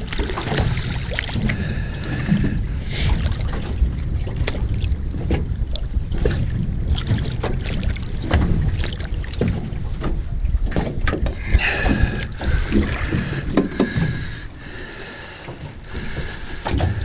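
Wind buffeting the microphone over water around a small boat, with many short splashes and knocks as a hooked gurnard thrashes at the surface and is lifted from the water.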